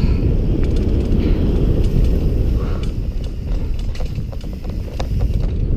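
Downhill mountain bike run on a dirt trail, heard from a helmet-mounted camera: a steady wind rumble on the microphone, with the bike's chain and parts rattling in quick, uneven clicks over the bumps.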